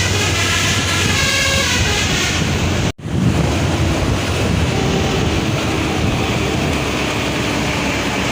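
Telolet horn on an intercity bus playing a multi-note tune that steps between pitches, stopping about two and a half seconds in. It cuts out suddenly about three seconds in, after which a steady rumble of vehicle and wind noise continues.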